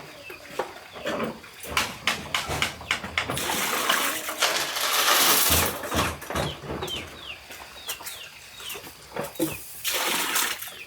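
Chickens calling, with repeated short falling peeps, over a heavy downpour of rain; the rain's hiss swells loudest for a couple of seconds in the middle.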